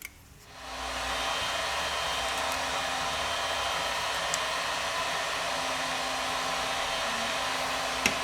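Electric hot-air blower switching on about half a second in and running steadily, an even rush of air with a faint motor hum.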